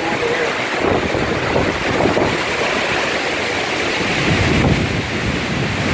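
Tornado winds with gusts of 90 to 110 mph, a dense rushing noise with heavy wind buffeting on the microphone. It surges about a second in, again around two seconds, and hardest between four and five seconds.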